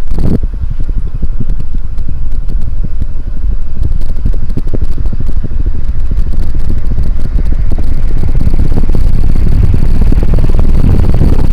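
Strong downdraft from an SMC KA36 36-inch metal-blade ceiling fan buffeting the microphone: a loud, low, fluttering rush of air with a faint high motor whine above it.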